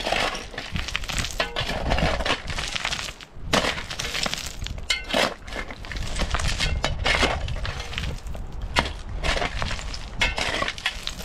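Irregular clattering and cracking knocks of hard objects struck or handled, several a second in clusters, over a low steady rumble.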